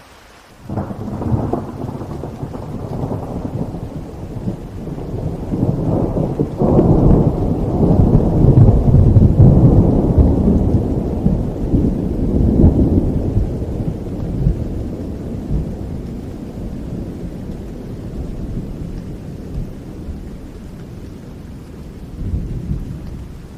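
A long roll of thunder over steady rain: it breaks in suddenly about a second in, swells to a deep rumble that is loudest around nine seconds, then slowly rolls away, with a smaller rumble near the end.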